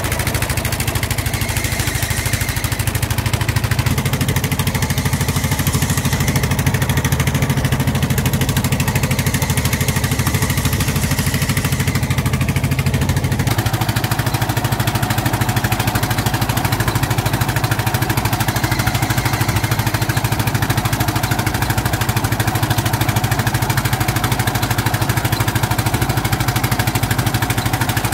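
Fishing boat's engine running steadily, its note changing about four seconds in and again about halfway through.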